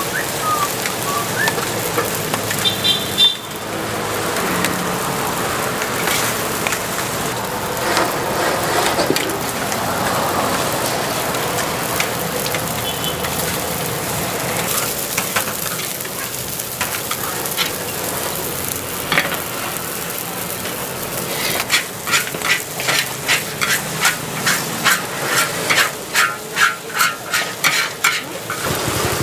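Seafood egg noodles sizzling and frying in a hot wok. Near the end a metal spatula strikes and scrapes the wok in quick strokes, about two a second, getting faster.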